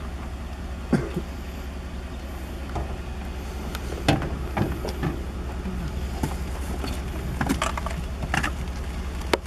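Scattered knocks and clunks of an AR-15 rifle being handled and laid down on a pickup truck's metal tailgate, the sharpest about four seconds in, over a steady low rumble.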